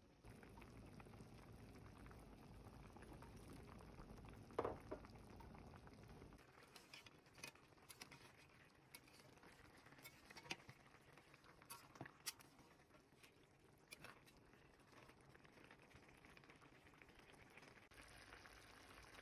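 Chicken pieces simmering in a thick sauce in a pot: faint bubbling with scattered small pops and crackles. A single sharp knock comes about four and a half seconds in.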